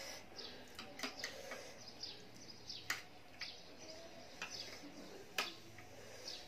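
Small birds chirping in the background, many short falling chirps, with a few sharp clicks of a metal fork and spoon against the tray as noodles are lifted; the two loudest clicks come about three and five seconds in.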